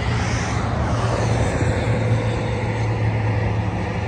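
Road traffic: a motor vehicle's engine running with a steady low hum, over an even wash of road noise.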